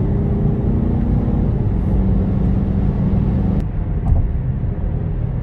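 A car driving at highway speed, heard from inside the cabin: steady engine drone with road and tyre rumble. About three and a half seconds in there is a short click, and after it the hum runs lower.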